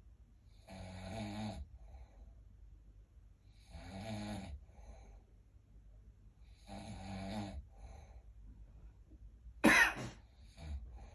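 Snoring: three long snores about three seconds apart, each followed by a softer out-breath, then a short, sharp, much louder burst of breath near the end.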